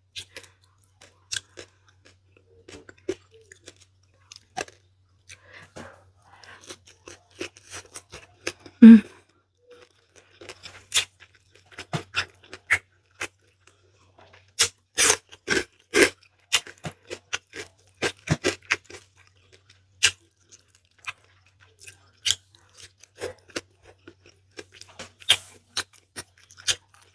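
Close-up mouth sounds of a person eating soft food by hand (noodles, rice, cooked saba banana): irregular wet chewing and lip-smacking clicks, growing denser in the second half. A short, loud low sound stands out about nine seconds in.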